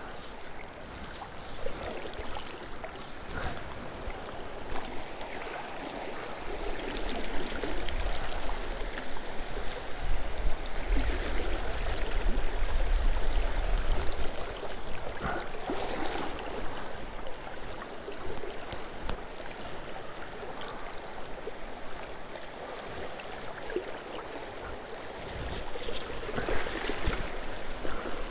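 Steady rush of a shallow river's current flowing past, growing louder for a few seconds in the middle with a low rumble underneath.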